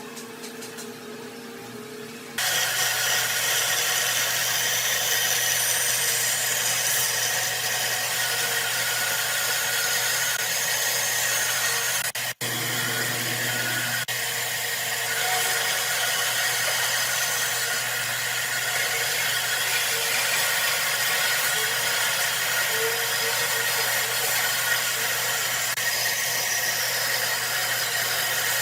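Electric power tool running steadily while working wood, a loud even hiss over a low hum that starts abruptly about two seconds in, with a brief break about twelve seconds in.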